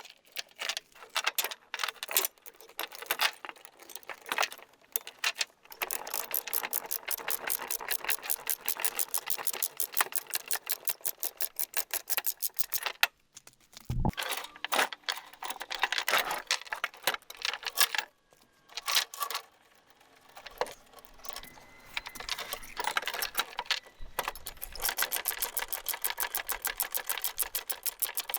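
Tie-down chains being fastened on a trailer: chain links rattling and clanking, with runs of fast, even ratchet clicks as a load binder is cranked tight.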